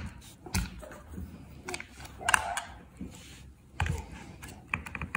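Batteries being pressed into the battery compartment of a Sony Bravia TV remote: a series of small, sharp plastic clicks and knocks, with a short scrape a little over two seconds in.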